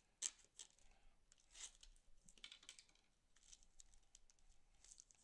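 Faint scratching and crinkling of plastic shrink-wrap on a cardboard trading-card box as a knife tip and fingers pick at it, trying to cut it open. Scattered small clicks and taps, the sharpest about a quarter second in.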